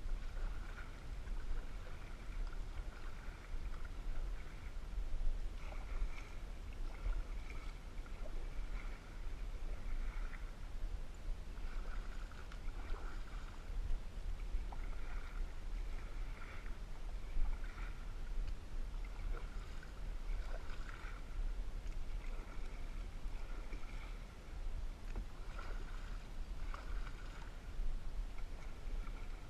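Canoe being paddled across calm water: paddle strokes swishing and dripping, with small knocks, over a steady low rumble.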